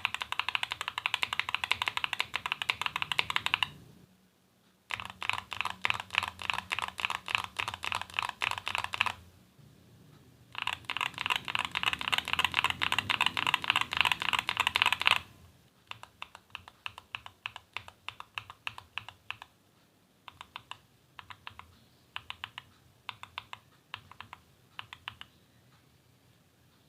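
Mechanical keyboard with stock tactile switches in an aluminium case being typed on: three fast runs of clacking keystrokes with short pauses between them, then slower, separate key presses a few per second that stop near the end.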